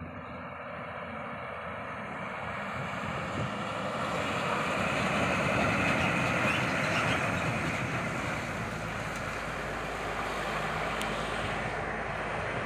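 Heavy truck engine running with road noise, growing louder over about six seconds and then holding steady.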